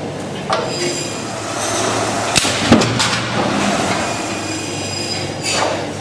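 Steady mechanical noise with a few sharp knocks clustered about two and a half to three seconds in.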